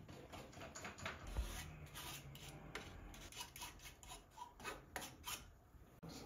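Steel palette knife scraping and dabbing paint across stretched canvas: a faint run of short, irregular strokes, with a dull knock about a second and a half in.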